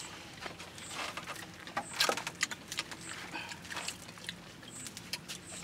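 Scattered small clicks and crackles of people eating by hand: chewing, and grilled fish being pulled apart on banana leaves.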